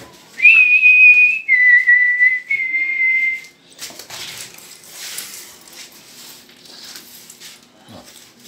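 A parrot whistles three held notes in a row: a high one, a lower one, then one a little higher again, each about a second long. Softer rustling follows.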